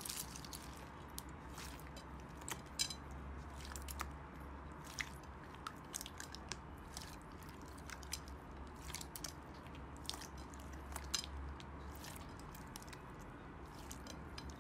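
Slime being pressed and worked by hand, giving irregular small crackling clicks and pops over a faint steady low hum.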